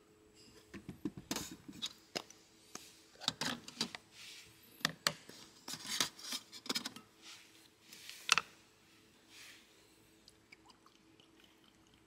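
Stainless-steel food containers clinking and knocking as they are set out on a perforated metal camp table, with the snap and rub of their lids being opened. The clatter runs for most of the first eight seconds, with the sharpest knock near the end of it, then stops.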